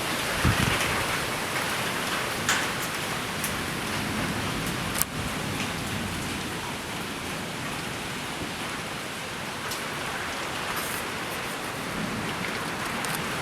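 Steady rain falling in a severe thunderstorm, with a few sharp taps of drops, the clearest about five seconds in.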